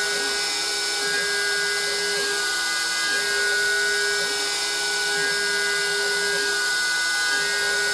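Homemade CNC router cutting a wooden workpiece: the compact router spindle runs with a steady high whine while the stepper motors whine up and down in pitch as the axes speed up and slow down, every second or two.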